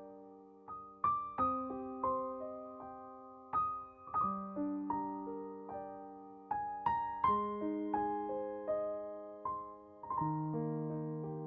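Soft background piano music: slow arpeggiated chords, notes struck one after another and left to ring.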